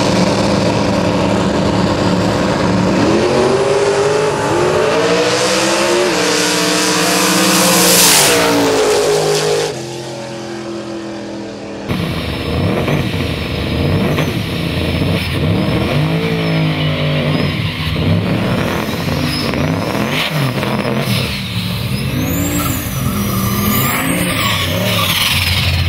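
Drag-racing pickup trucks' engines revving hard, the pitch climbing again and again as they launch and pull away. After a cut about ten seconds in, more trucks rev up and down with tyres spinning and squealing in smoke.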